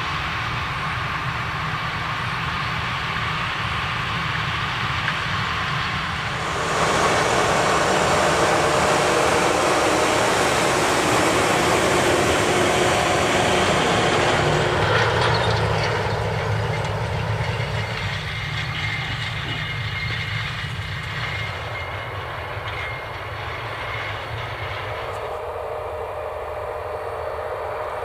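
CAT Challenger MT875E rubber-tracked tractor's diesel engine working steadily under load as it pulls a wide tillage cultivator through the soil, with a rattle from the tracks and implement. It gets much louder about seven seconds in as it passes close by, and is quieter again from about the middle on.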